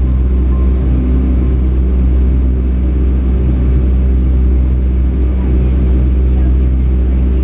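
Steady cabin noise of a Boeing 757-200 in flight, heard from a passenger seat: a constant deep rumble of engines and airflow with a hiss above it.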